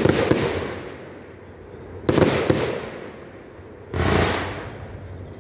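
Aerial firework shells from a "Flying Tiger 120's" firework bursting overhead: three sharp bangs about two seconds apart, each trailing off over about a second.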